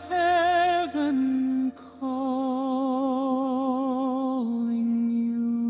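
Closing of a worship song: a voice holds wordless notes with vibrato, the longest from about two seconds in, then gives way to a steady sustained tone a little past halfway.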